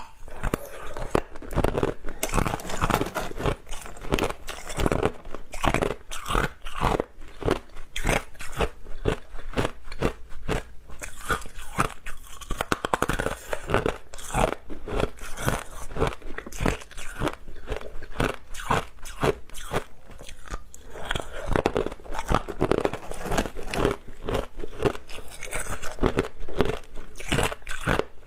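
Hard clear ice being bitten and chewed close to the microphone: a rapid, irregular run of loud crunches and cracks.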